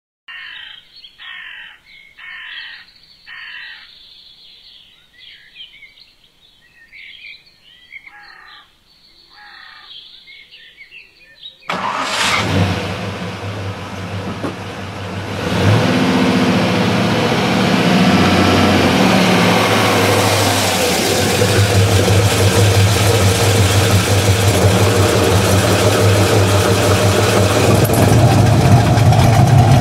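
Birds singing for roughly the first twelve seconds, then the 1979 Chevrolet Camaro's 6.6-litre small-block V8 starts suddenly and runs loudly at idle. Its sound steps up a few seconds after starting and stays steady.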